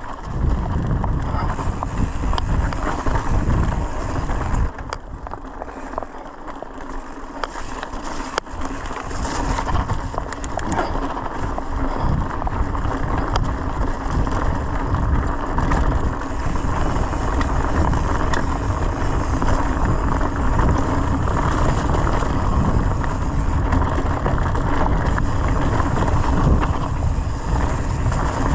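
Mountain bike rolling down a leaf-covered dirt trail: tyre noise over leaves and dirt with wind buffeting the microphone, and occasional knocks and rattles from the bike. The rushing dips a few seconds in, then grows louder and stays up as the bike gathers speed.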